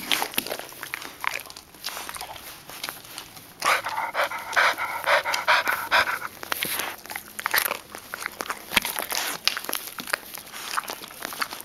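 Elderly Lab–beagle dog panting right beside a collar-mounted camera, quick repeated breaths that grow stronger for a couple of seconds near the middle, with scattered short clicks and rubbing as she moves about.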